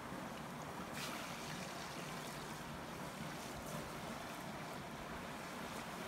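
Steady rush of a small waterfall and stream, with a sudden sharp noise about a second in.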